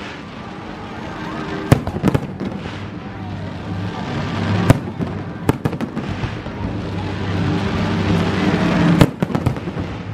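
Fireworks shells bursting in sharp bangs: a couple about two seconds in, single bangs around the middle, and a quick run of several near the end.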